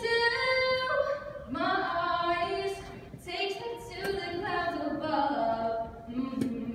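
A woman singing solo and unaccompanied into a microphone, in long held phrases with short breaks between them.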